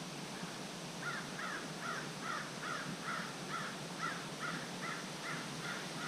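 Wild turkey yelping: a steady run of about a dozen yelps, roughly two and a half a second, starting about a second in and fading toward the end.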